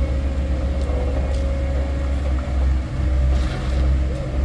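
Heavy vehicle engine running with a steady low rumble.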